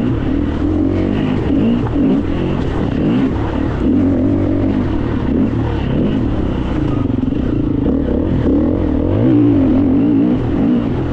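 Enduro motorcycle engine heard from on board while riding, its pitch repeatedly rising and falling as the throttle is opened and closed.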